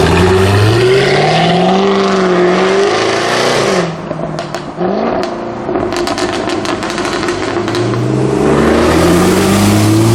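Jaguar F-Type R's supercharged V8 revving hard with its pitch climbing, then lifting off about four seconds in. A rapid string of exhaust crackles and pops follows on the overrun, and near the end the engine revs up again.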